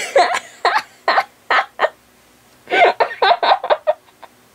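High-pitched laughter in short, gasping bursts, in two runs with a pause between.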